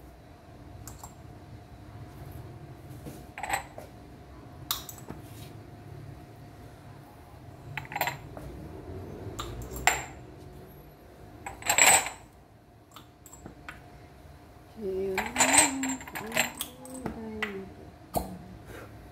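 Glass cupping cups clinking as they are handled and set on the skin for fire cupping: a series of separate sharp clinks a few seconds apart, the loudest about twelve seconds in.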